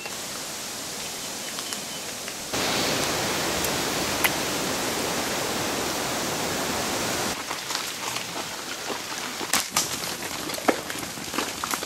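Steady outdoor hiss of woodland ambience that steps louder about two and a half seconds in and drops back a little after seven seconds, with scattered sharp snaps and crackles in the last few seconds.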